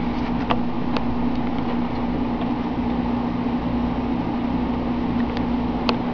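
Steady mechanical hum, like a small motor or fan running, with one strong low tone. A few faint sharp clicks sound over it.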